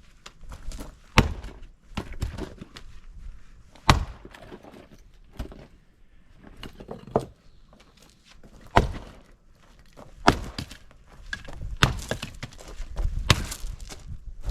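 A freshly sharpened 3-pound axe striking and splitting firewood: about half a dozen sharp, hard blows a second or more apart, with smaller knocks and clatter of wood between them.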